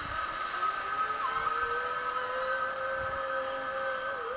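Zip line trolley pulleys rolling down the steel cable under a child rider: a steady whirring whine with a tone that slowly rises, cutting off suddenly near the end.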